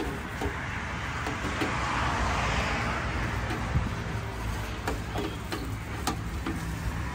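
Street noise with a vehicle passing by, its sound swelling and fading over about three seconds, and a few sharp clicks.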